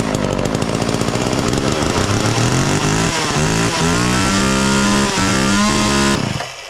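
Homelite 240 two-stroke chainsaw engine running on starting fluid. It runs rough at first, then picks up to a steady higher speed and cuts out about six seconds in. The owner takes the uneven running as a sign that the carburettor needs adjusting.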